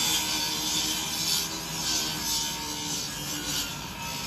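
Water spray from a fire hose hitting a burning car, hissing and rasping, with the hiss swelling and fading every half second or so, over a faint steady hum.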